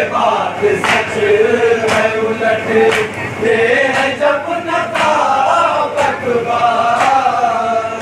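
A group of men chanting a noha, a Shia mourning lament, in unison, with sharp strokes of matam (hands beating on chests) about once a second keeping the beat.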